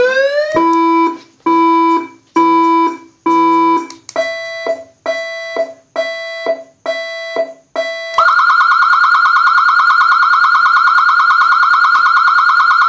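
Federal Signal AS9000B 200-watt electronic siren stepping through its tone modes: four low steady beeps about a second apart, then a quicker run of higher beeps, then about eight seconds in a continuous, fast-pulsing high warble.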